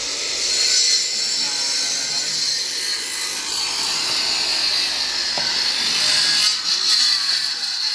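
Handheld electric circular saw ripping along a long wooden plank: a steady, loud cutting noise that does not break.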